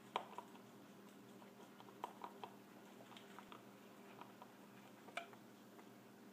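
English angora rabbit chewing greens and hay: faint, irregular crunching clicks. The loudest comes just after the start, a cluster follows about two seconds in, and another comes about five seconds in, over a faint steady hum.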